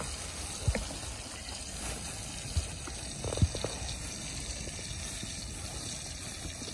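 Hot oil sizzling steadily in a pot over a wood fire as cinnamon sticks and bay leaves fry in it, with a few light clicks and knocks.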